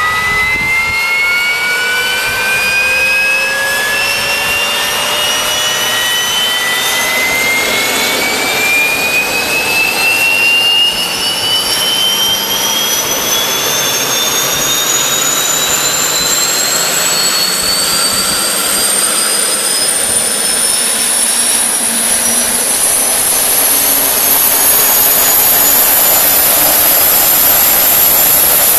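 Turbomeca Astazou 3N2 gas turbine accelerating through its start-up: a high whine climbs steadily in pitch over a rushing air noise, then levels off near the end as the engine settles at speed.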